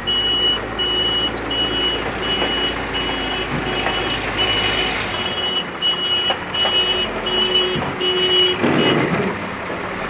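JCB backhoe loader's reversing alarm beeping steadily about twice a second over its running diesel engine as the machine backs up. The beeping stops about a second before the end.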